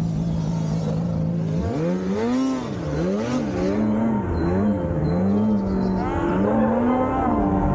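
Snowmobile engine running at a steady low speed, then revving up sharply about a second and a half in, its revs rising and falling over and over as the sled is ridden off through deep snow.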